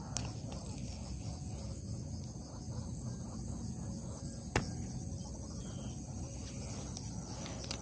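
Steady high-pitched chirring of crickets and other insects over a low steady rumble, with two sharp clicks, one just after the start and one a little past halfway.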